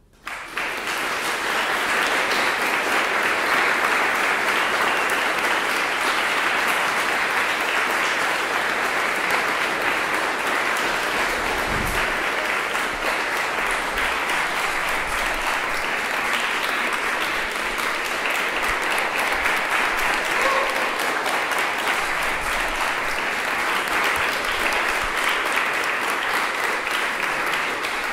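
Audience applauding, breaking out suddenly as the accordion piece ends and going on steadily.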